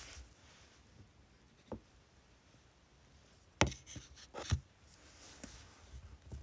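A few light knocks and taps from clear-stamp tools, the stamp on its acrylic block and the ink pad, handled on a craft desk: a soft tap about two seconds in, then two sharper knocks about a second apart past the middle.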